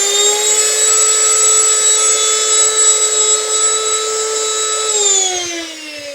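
Electrolux ErgoEasy ZTF7610EL vacuum cleaner's 1600 W motor and suction turbine running at full speed with a high whine, a motor whose turbine has broken blades. About five seconds in it is switched off and winds down, the whine falling in pitch.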